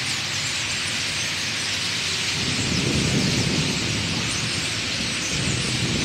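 A huge flock of blackbirds calling all at once, thousands of squeaks and chatters merging into a steady, high, hissing din. A low rumble swells about halfway through and again near the end.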